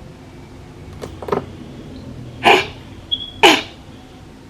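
A person sniffing hard through the nose: two fainter sniffs about a second in, then two loud, sharp ones. A brief high beep sounds just after three seconds.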